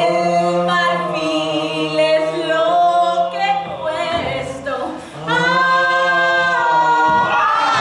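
Several voices singing unaccompanied, holding long notes in harmony over a low sustained note. The singing breaks off briefly about five seconds in and then resumes.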